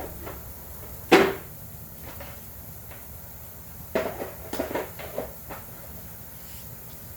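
Hand tools clanking in a workshop: one sharp metallic knock with a short ring about a second in, then a quick clatter of several knocks and rattles a few seconds later.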